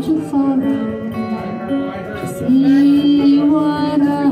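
A woman singing a folk song in long held notes, accompanying herself on acoustic guitar.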